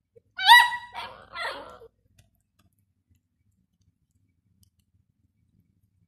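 A small dog giving two short high-pitched yips in quick succession, the second dropping in pitch.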